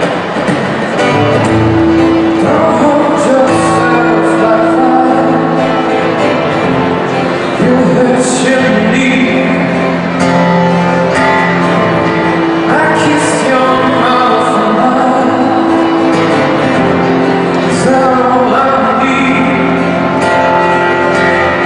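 Live music: a male singer singing a slow song over instrumental accompaniment.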